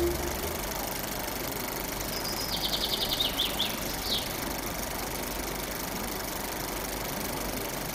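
The small motor of a homemade model tractor runs steadily, turning a rubber belt that drives a miniature water pump. A quick series of high chirps comes through about two and a half seconds in.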